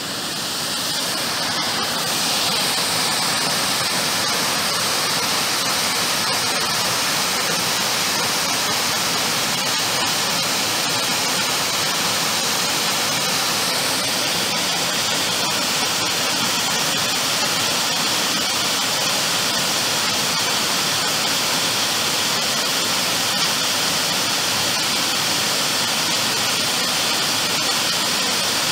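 Waterfall pouring down a rocky gorge below a dam, giving a steady rush of falling water that grows louder over the first two seconds and then holds even.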